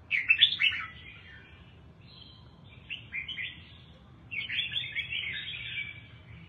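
Caged red-whiskered bulbul singing in three phrases: one at the start, one about two to three seconds in, and a longer one from about four and a half seconds.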